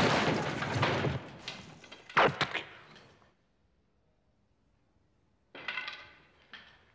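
A dense clatter with a single hard thud about two seconds in, dying away to quiet; a short rasping scrape comes near the end.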